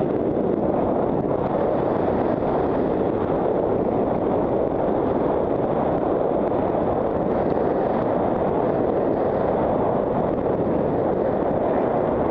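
Wind rushing over a head-mounted camera's microphone during a fast downhill ski run in powder: a loud, steady rush.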